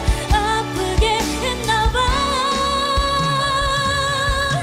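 A woman singing a Korean ballad live over band accompaniment with drums, holding one long note with vibrato from about two seconds in.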